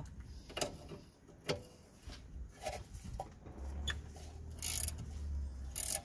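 A 13 mm ratcheting spanner on the rear brake caliper bolt: scattered light metal clicks, then two short ratcheting rasps near the end.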